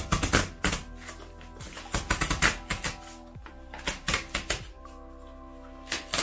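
Perforated tear strip being pulled along a corrugated cardboard box, ripping the cardboard in quick crackling runs of clicks, in several short pulls with brief pauses between them. Gentle background music plays underneath.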